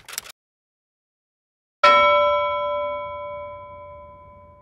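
A single bell-like ding about two seconds in, ringing with several clear tones and fading slowly over about three seconds. A brief noisy click right at the start.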